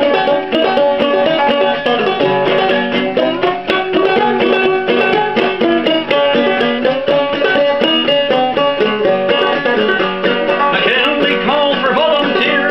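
Banjo played clawhammer style in open G tuning: a steady, busy run of plucked notes and brushed strums in an old-time rhythm.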